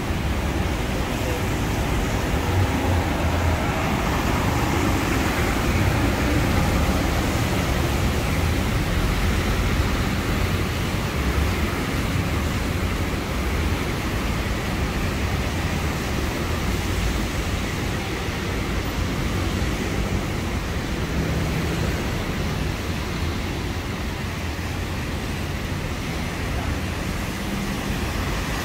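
Busy city traffic on wet streets: a steady noise of engines and tyres on the wet road.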